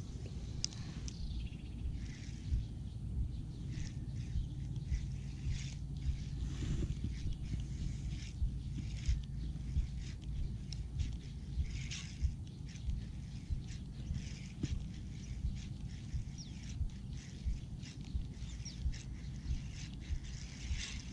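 Outdoor ambience: a steady low wind rumble on the microphone, with scattered short bird calls over it.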